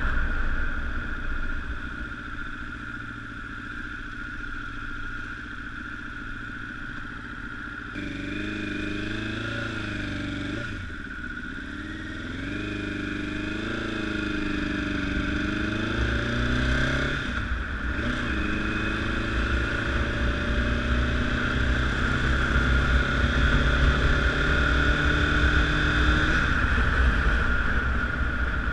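Honda CBR1000RR inline-four engine under way, its note rising and falling with the throttle. It comes through clearly about a third of the way in, drops sharply twice as if between gears, then climbs steadily.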